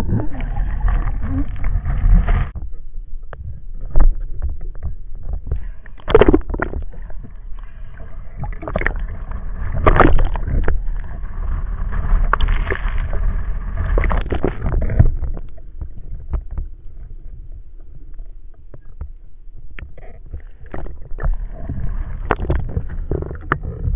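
Sea water gurgling and sloshing around an underwater camera housing, with scattered clicks and knocks.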